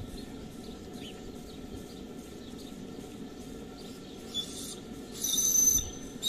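Model steam launch's whistle sounding briefly near the end as a shrill high note, after a short hiss about four seconds in, over a steady low background noise.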